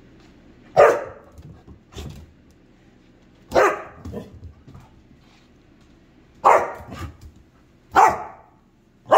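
Aussiedoodle puppy barking: five short, sharp barks spaced about one and a half to three seconds apart, each followed by softer sounds.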